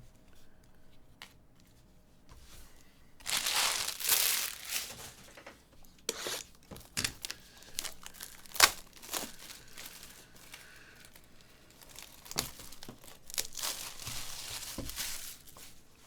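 Trading-card pack wrapper being torn open and crinkled, with sharp crackling clicks as it is handled. There are two louder tearing stretches, a few seconds in and near the end.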